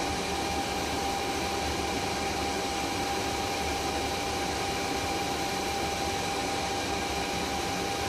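Air handler supply fan running steadily on its variable frequency drive at about 30 Hz: an even rushing hum with a faint steady high tone.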